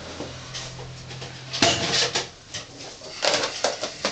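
A plastic food container being handled and its lid fitted on, with rustling and light plastic clatter in two short spells. A low steady hum sounds in the first half.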